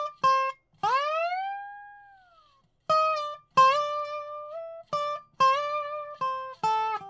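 Lap-style resonator guitar played with a slide bar: a phrase of plucked notes with a big upward swoop about a second in that rings and fades away, then more picked notes with short slides up, and a line walking down the scale near the end.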